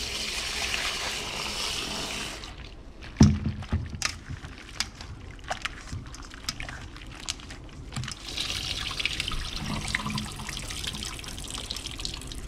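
Kitchen tap running into a stainless steel bowl of raw peeled shrimp being rinsed by hand. The water stops about two seconds in, there is one sharp knock, then wet squishing and clicking of hands rubbing the shrimp in the bowl, and the tap runs again from about eight seconds in until just before the end.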